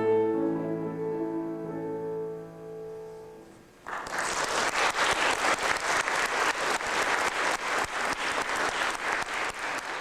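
The song's closing piano chords ring out and fade. About four seconds in, the audience breaks into steady applause.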